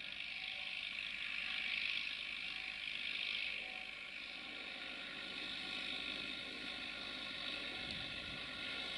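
A distant vehicle running steadily: a high hissing whir with several steady tones beneath it, swelling to its loudest about two seconds in and then holding.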